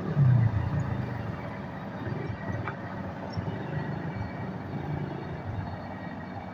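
Komatsu PC200 excavator's diesel engine running with a steady low rumble, louder for a moment near the start.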